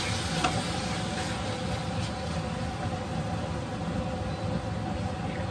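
Raw chicken livers sizzling as they fry in a pan with onion and garlic, stirred with a spatula, over a steady mechanical hum.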